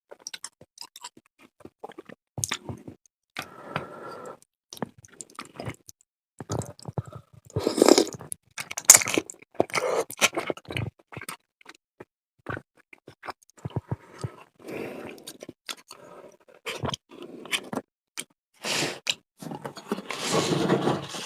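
Close-miked mukbang eating: a person chewing and biting food, with many short wet clicks and smacks and a few louder, longer noisy stretches around eight seconds in and near the end.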